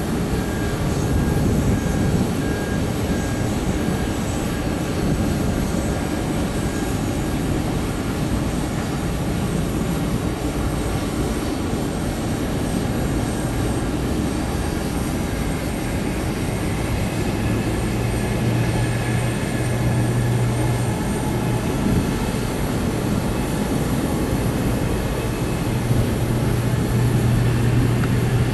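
Airbus A320-family jet airliner's engines running at taxi power: a steady rumble and hiss with faint thin whistles, joined by a low steady hum about two-thirds of the way through.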